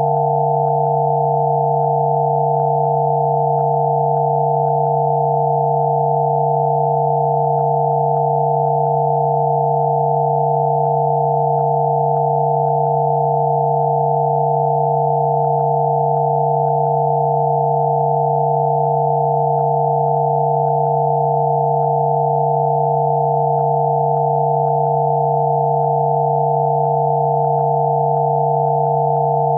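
Several steady, pure electronic sine tones sounding together without change, one low and several higher: a generated Rife-frequency therapy tone.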